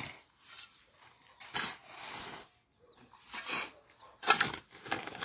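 Steel shovels scraping into and turning a heap of gravel, dry-mixing it with cement: a rasping scrape about once a second, four or five strokes.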